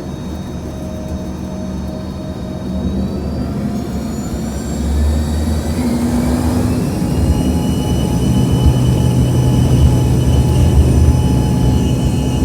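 American Eagle regional jet's turbofan engines spooling up for takeoff: whining tones climb in pitch from about three seconds in while the engine noise grows louder, then holds steady at takeoff power.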